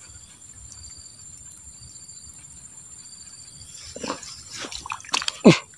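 Faint steady insect chirring, then, about four seconds in, a quick run of short wet splashes and squelches from the flooded mud eel hole as the bait is worked, the loudest one with a falling pitch near the end.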